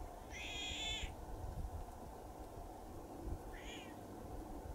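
Two high-pitched animal calls: the first held about three quarters of a second, the second shorter and dipping in pitch, over a low, steady background noise.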